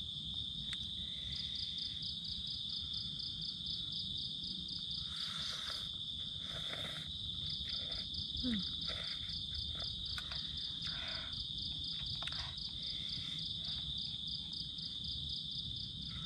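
Insects trilling: a steady high-pitched trill with a second, rapidly pulsing call above it, carrying on without a break. A few short rustles or scrapes come through it, one about five seconds in and others a little later.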